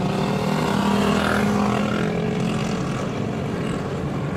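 Car engine and tyre noise heard from inside the cabin while driving: a steady drone that swells slightly about a second in.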